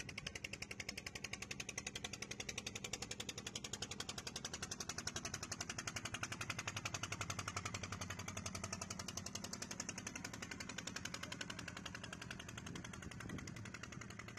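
Engine of a wooden river boat running steadily with a rapid, even putter, fading a little as the boat moves off.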